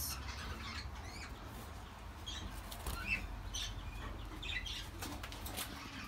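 Pet budgerigars moving about in a wire cage: short, scratchy fluttering and rustling sounds every half second to a second.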